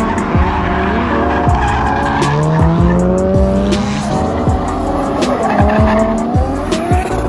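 A drift car's engine revving up and down with tyres squealing as it slides, under music with a steady beat.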